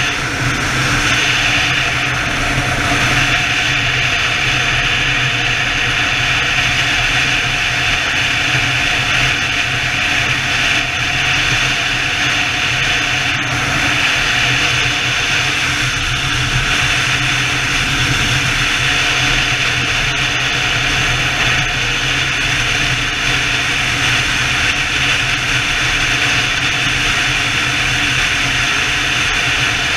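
A BMW touring motorcycle's engine and road noise at a steady highway cruise, with heavy wind rush over the microphone. The engine tone stays level throughout, holding one speed.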